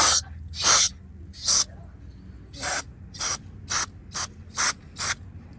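Aerosol throttle body cleaner sprayed through its straw tube in quick hissing squirts, about eight of them, one every half second or so, after a longer squirt that ends just as it begins. The spray is cleaning old oil and grime out of a removed Ford F-150 throttle body.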